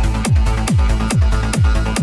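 Trance track playing in a DJ mix: a steady four-on-the-floor kick drum at about two kicks a second, with hi-hats between the kicks and sustained synth chords above.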